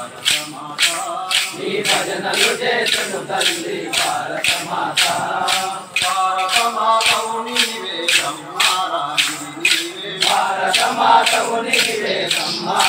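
Men singing a devotional prayer together to the steady clack of chirutalu, hand-held wooden clappers struck in time, about two to three clacks a second.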